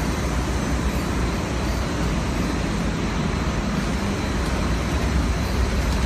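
CAT6 network-cable stranding and taping machine running: a steady mechanical din with a strong low hum and a few faint, steady high tones.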